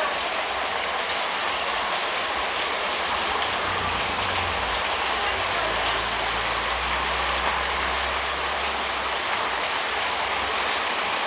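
Heavy rain pouring steadily, a dense even hiss of falling water. A low rumble swells for a couple of seconds past the middle.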